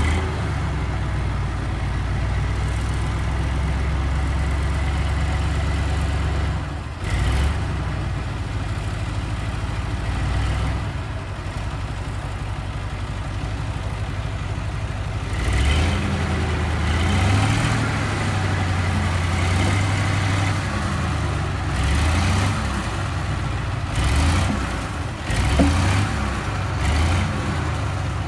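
Heavy dump truck's diesel engine idling steadily, then from about halfway revving up and down unevenly as the tipper bed is raised to dump its load of soil.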